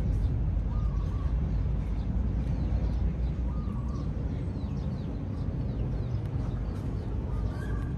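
A steady low rumble with a few faint, short bird calls over it: one about a second in, one near the middle and one near the end, plus some faint high chirps.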